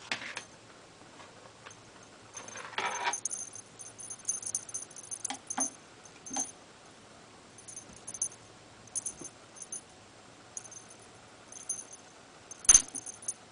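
A small bell jingling in short, irregular bursts while a cat plays with a string toy, with a rustle about three seconds in and a sharp knock near the end.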